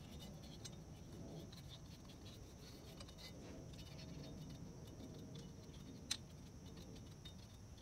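Faint scratching and dabbing of a small applicator brush spreading anti-seize compound on a steel wheel hub face, with one sharp click about six seconds in.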